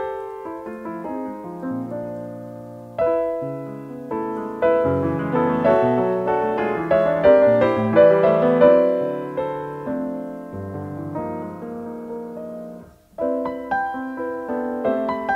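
Background piano music of sustained chords and melody notes, with a brief pause near the end before it picks up again.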